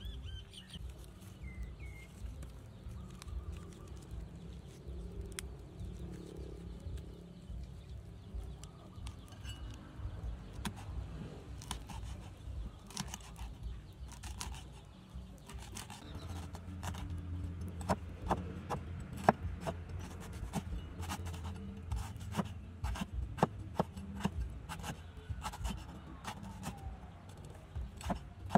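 Cleaver chopping on a wooden chopping block: a run of sharp knife strokes cutting herbs and lemongrass. The strokes come more often and louder in the second half.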